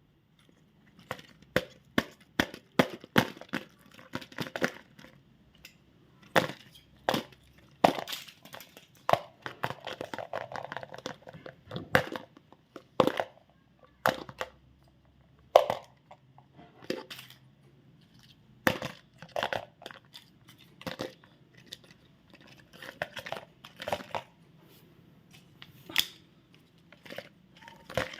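Chocolate and candy wrappers crinkling and tearing as they are unwrapped, in irregular clusters of sharp crackles.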